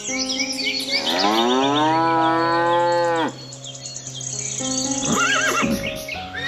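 A cow mooing once, a long call that rises and then falls, over steady background music. Short higher-pitched calls follow near the end.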